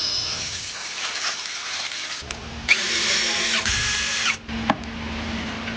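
A power tool runs in one burst of about a second and a half, about halfway in. A steady low hum starts about two seconds in and continues beneath it.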